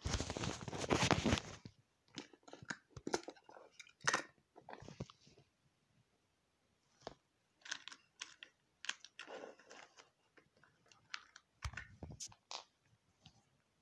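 Small plastic toys rattling in a wooden box as they are rummaged through: a dense clatter for the first second and a half, then scattered clicks and knocks as pieces are handled.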